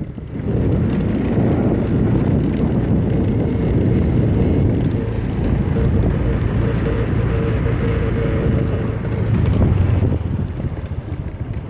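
A vehicle running while on the move, with wind rumbling on the microphone; a faint steady hum sounds through the middle.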